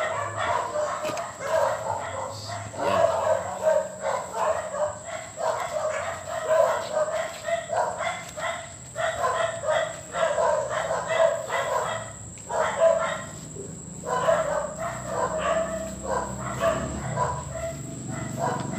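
A dog barking over and over in short, quick barks, with only brief pauses.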